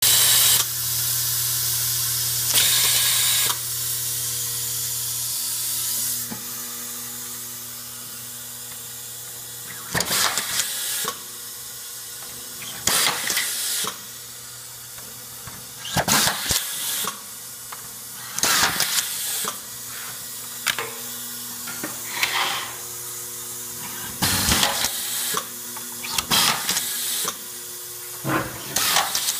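Vibratory bowl screw feeder buzzing with a steady low hum under loud air hiss, the hum fading out about six seconds in. From about ten seconds in, an Aro pneumatic inline screwdriver with air-blown screw feed drives screws one after another: about eight short bursts of air hiss and motor whirr, each two to three seconds apart.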